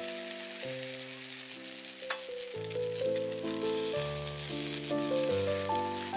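Chicken wings sizzling on a wire grill rack over charcoal, with melodic background music playing over it. A single sharp click about two seconds in.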